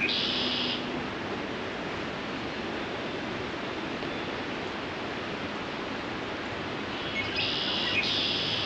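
Two male red-winged blackbirds answering each other's song, one singing right after the other: a song at the start and two more back to back near the end, over a steady background hiss. It is breeding-season song, the males advertising their territories to each other and courting females.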